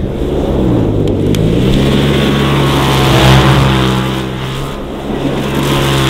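Polaris RZR side-by-side's engine held at high revs while it spins donuts in deep snow, over a wide hiss of churned snow. The revs climb about a second in and then hold steady.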